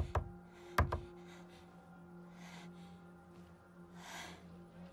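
Knuckles knocking on a heavy wooden door, two sharp knocks in the first second. Then a woman breathing hard in soft gasps after running, over a low steady hum.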